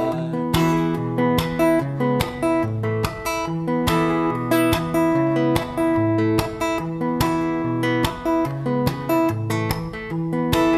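Acoustic guitar strummed in a steady rhythm, chords changing every second or so: an instrumental break between sung lines.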